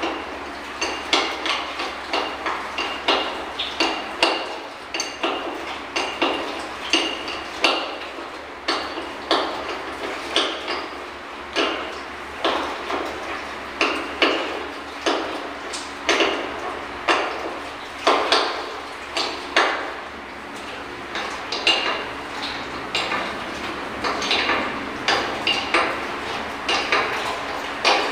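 Steel chain of a manual chain hoist clinking and rattling as its hand chain is pulled, an irregular run of sharp metallic clinks, about two a second.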